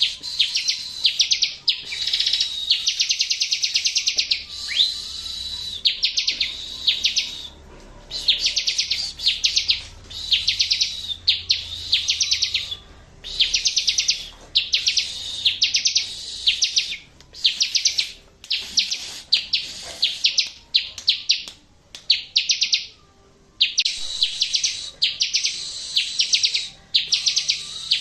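Bar-winged prinia (ciblek) song: phrase after phrase of fast, high chattering trills of rapidly repeated notes, each burst lasting about half a second to two seconds with short pauses between, used as a training song to set caged ciblek singing.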